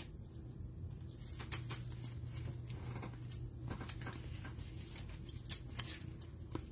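Panini Mosaic football cards being sorted by hand in nitrile gloves: light clicks and rustles of card sliding against card, a few sharper flicks near the end, over a faint steady low hum.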